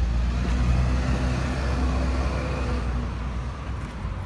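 A motor vehicle's engine running nearby with a steady low drone. It swells up at the start and fades away about three seconds in.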